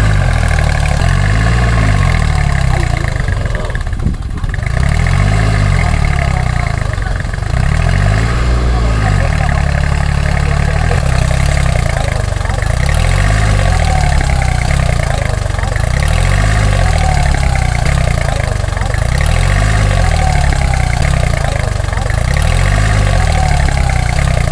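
Tractor engine sound running steadily, with a low chugging swell that repeats about every one and a half seconds.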